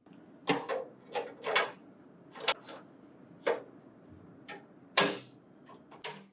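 Plastic cover of a printer's paper tray being handled and fitted into place: a series of sharp plastic clicks and knocks, the loudest about five seconds in.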